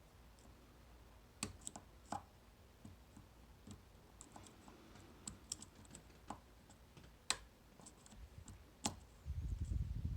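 Faint, irregular small clicks and ticks of a dimple pick and tension tool working the pins of a Mul-T-Lock Interactive pin-in-pin dimple lock, with a low rumble of handling noise about nine seconds in.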